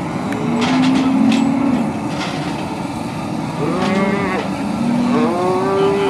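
Calves bawling at a branding: a low, drawn-out bawl near the start, then two higher, arching bawls in the second half, over a steady rushing background noise.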